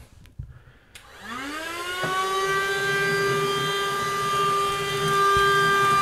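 WOLFBOX YD590G cordless handheld wet-dry vacuum switched on with a click about a second in, its motor spinning up in a rising whine and then running steadily with a high-pitched whine.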